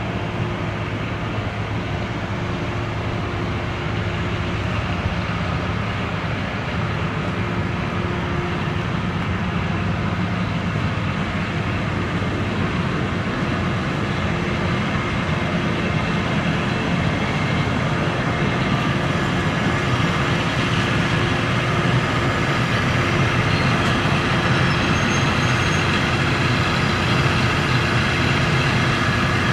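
DE15 diesel-hydraulic locomotive's engine running steadily as it moves the 12-series trolley-train coaches slowly during shunting, growing gradually louder.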